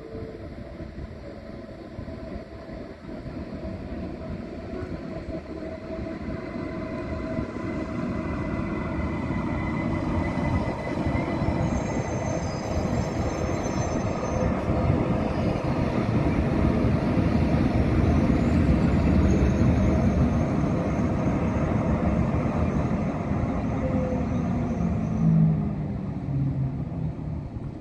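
Deutsche Bahn ICE 1 (class 401) high-speed train rolling in along the platform, its running noise swelling steadily to loudest about two-thirds of the way through, with a brief high squeal around the middle.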